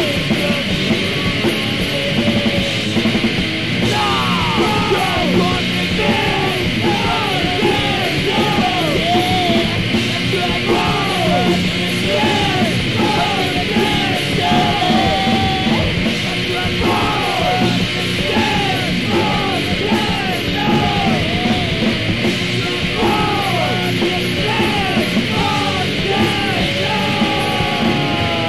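Loud, heavy punk-style rock music with yelled vocals. From about four seconds in, a short falling figure repeats about twice a second.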